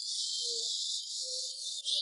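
Corded electric chainsaw cutting into a weathered tree stump: a steady, high-pitched hiss of the chain through the wood.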